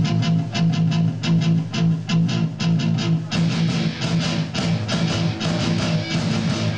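Live rock band playing: electric guitars and bass over drums in a steady, driving riff with about four hits a second. The sound grows busier and brighter about three seconds in.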